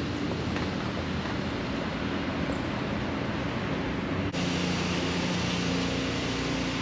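Steady background road traffic, a continuous even rush. About four seconds in it changes abruptly and a steady low hum joins it.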